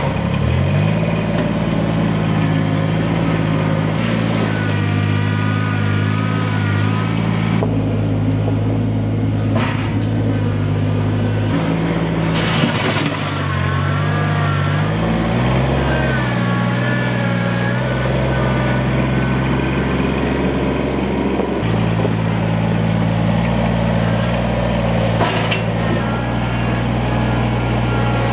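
Kubota BX2370 compact tractor's three-cylinder diesel engine, starting up and then running steadily at working speed. Its pitch steps up and down several times as the front loader bucket digs into and lifts gravel.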